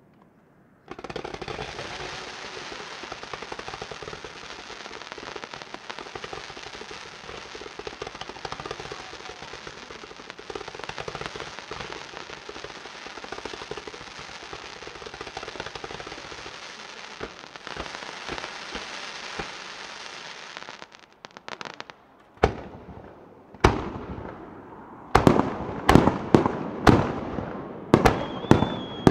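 Ground fountain firework hissing and crackling steadily for about twenty seconds before it cuts out. Then come sharp bangs of aerial firework shells: two on their own, then a quick run of them near the end.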